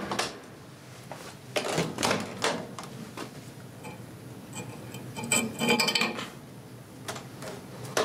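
A microwave oven's hum cuts off at the start, then a string of clicks and knocks as the oven door is opened and a halogen downlight is handled and set on a brick inside the cavity, with clusters of clatter about two seconds in and again around the middle.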